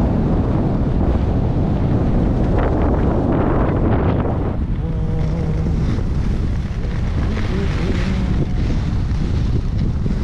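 Wind buffeting the microphone: a loud, steady, low rushing rumble that thins slightly about halfway through.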